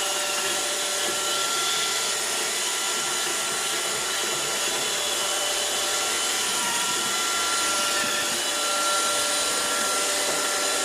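iRobot Roomba 521 robot vacuum running: a steady whirring hiss with a faint, even whine.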